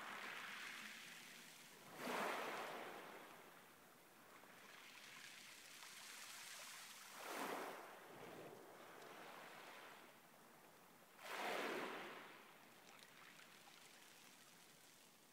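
Small waves washing onto a pebble beach, rising three times a few seconds apart and fading softly between.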